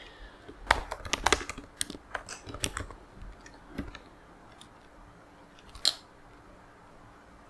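Typing on a computer keyboard: a quick run of keystrokes for about two seconds, then a few scattered taps and a single louder click near the end.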